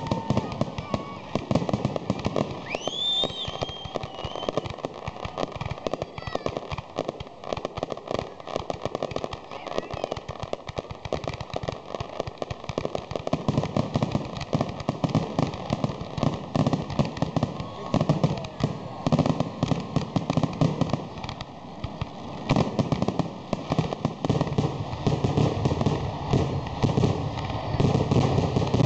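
Fireworks grand finale barrage: a dense, rapid run of bangs and crackling from aerial shells and ground-fired mines, thickening and heavier from about halfway through. A couple of rising whistles sound in the first few seconds.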